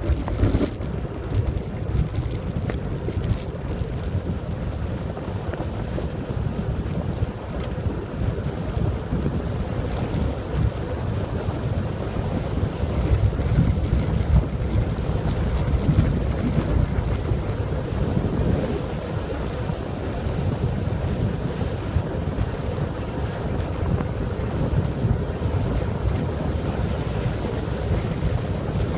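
Wind rushing over the microphone of a recumbent bicycle riding fast on asphalt at about 35–50 km/h: a steady low roar that swells and eases.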